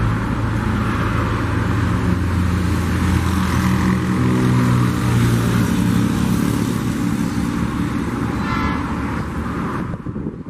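EMD GR12W diesel locomotive running steadily with a low, even drone as it moves a train of loaded mineral hoppers. A brief high-pitched squeal comes about eight and a half seconds in, and the sound drops away suddenly near the end.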